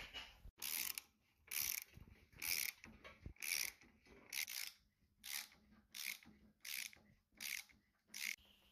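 Socket ratchet wrench worked back and forth to tighten a nut on a Ford Model T rear axle. About ten short ratcheting rasps come a little under a second apart.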